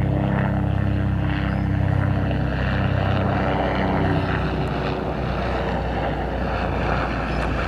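Helicopter passing overhead: a steady low drone of engine and rotor that holds throughout.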